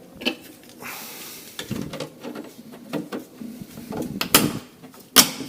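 Handling noise: a series of irregular clicks, knocks and short scrapes, with the sharpest click near the end.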